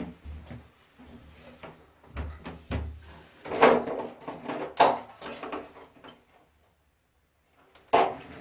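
Irregular clatter and knocks of wall-mounted air conditioner parts being handled and taken apart, busiest in the middle, with a short lull and then one sharp knock near the end.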